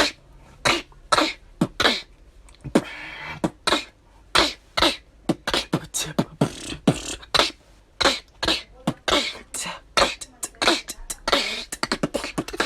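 Human beatboxing: a fast run of short mouth-made drum sounds, sharp clicks and hissy snare-like strokes with deeper kick-like hits between them.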